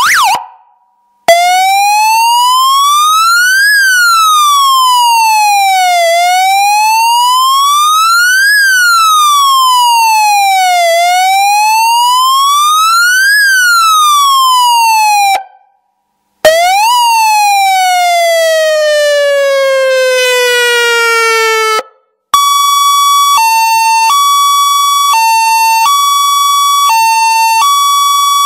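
Electronic siren through a horn loudspeaker running through its tones. First comes a slow wail that rises and falls about three times. After a short gap there is a quick rise followed by one long falling tone. Then, after another gap, a steady two-tone hi-lo alternation runs on.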